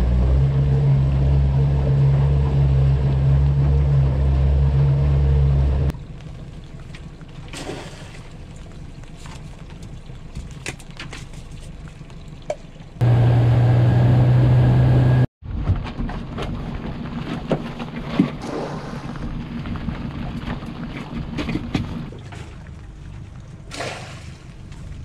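A 60 hp outboard motor runs steadily as the boat moves along, then stops, and water laps against the hull. Near the end, the sharp knocks and splashes fit crab pots being thrown over the side. The motor comes back briefly in the middle, loud, for about two seconds.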